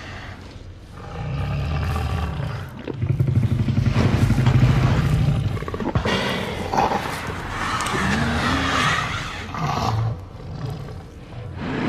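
Jurassic Park Tyrannosaurus rex roar sound effect: deep, rumbling roaring that swells to its loudest about four to five seconds in, with sweeping pitch later on.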